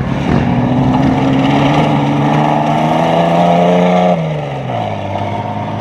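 A rally race car's engine running under load, its pitch climbing steadily for about four seconds. It then drops sharply and gets quieter, as the car lifts off the throttle or goes past.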